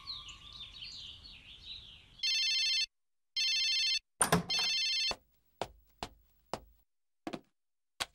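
Birds chirp briefly, then a mobile phone rings twice with short electronic rings, an incoming-mail alert. A clack and a brief tone follow as the phone is picked up, then about five single key clicks as its buttons are pressed.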